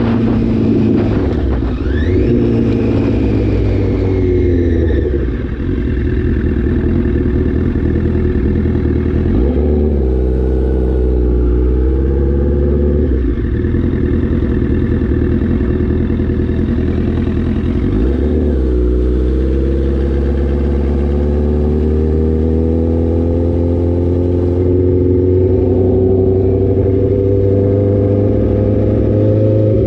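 Motorcycle engine running while riding. Its pitch dips and climbs again a few times as the bike eases off and picks up speed, and rises steadily near the end under acceleration.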